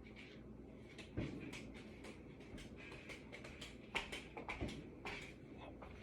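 Faint scattered clicks, taps and light rustles of small objects being handled. There is a louder knock about a second in and a quick run of clicks around four to five seconds in.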